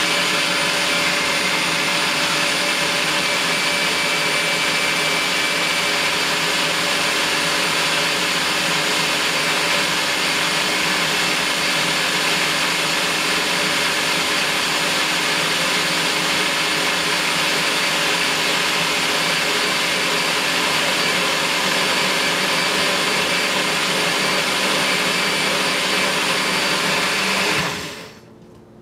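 NutriBullet personal blender motor running steadily at full speed, blending watermelon and berries into a smoothie, with a constant whine over a rushing noise; it cuts off near the end.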